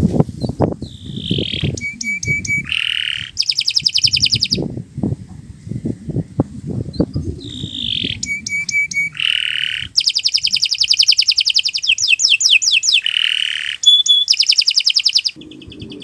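Domestic canary singing a long, varied song of rapid trills and rattling rolls, phrase after phrase with only brief gaps. Low irregular thuds sound underneath during the first half.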